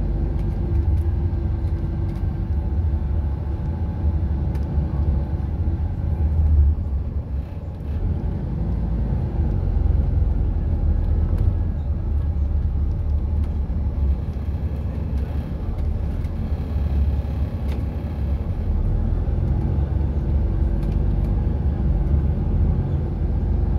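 Inside a moving 2012 Volvo 8900 B7RLE city bus: the six-cylinder diesel engine's steady low rumble and road noise, as heard from a passenger seat. The sound eases briefly about seven seconds in.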